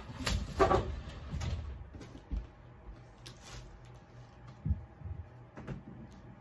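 Rummaging through a closet: a burst of shuffling and scraping in the first second or two, then a few separate light knocks and bumps as things are moved about.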